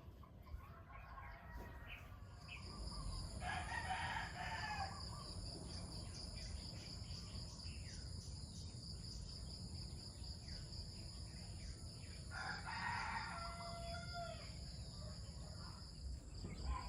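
A rooster crowing twice, each crow lasting about two seconds, the second trailing off at the end. Over them a steady high-pitched whine sets in a couple of seconds in and holds.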